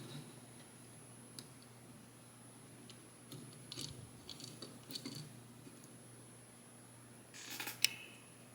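Plastic Transformers action figure being handled and posed: scattered small clicks and taps from its joints and parts, with a louder cluster of clicks near the end.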